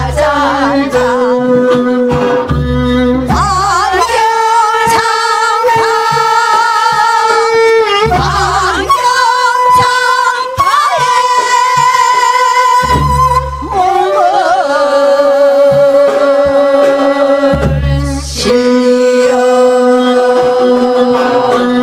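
A group of women singing a Korean folk song (minyo) together into microphones, holding long notes with a wavering vibrato, over an accompaniment with deep low notes that return every few seconds.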